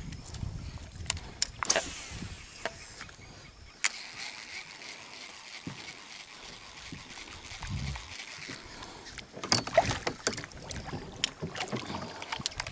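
Scattered clicks and knocks from a small plastic fishing boat and the angler's tackle while a topwater lure is worked, with a cluster of louder knocks about ten seconds in, over a faint steady hiss.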